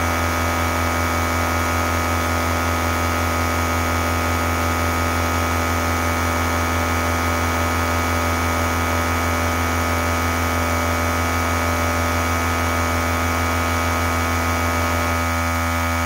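12-volt All Top 150 PSI portable air compressor running continuously with a loud, steady electric-motor hum, pumping a 2-gallon tank up toward about 140 psi. Its tone shifts slightly near the end as the tank pressure builds.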